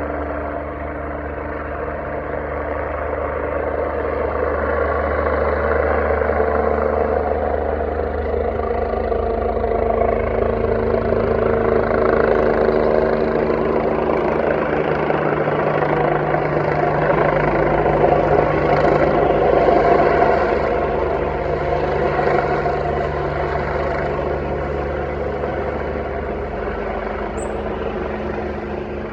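Helicopter flying low overhead: a steady rotor and engine drone that swells to its loudest around the middle and fades again as the helicopter circles.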